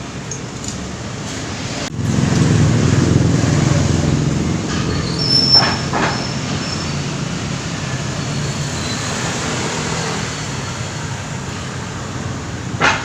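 A low mechanical rumble sets in suddenly about two seconds in and slowly fades, with a couple of short sharp clicks in the middle and again near the end.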